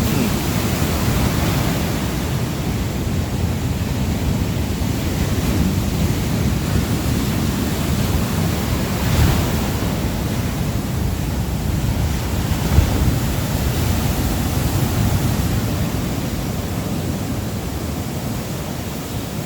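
Surf breaking and washing on a sandy beach, a steady rolling noise with slow swells, with some wind on the microphone. A single brief click about two-thirds of the way through.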